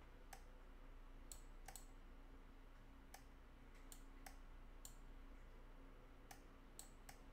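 Faint computer mouse clicks, about ten single clicks at irregular intervals, over a faint steady hum.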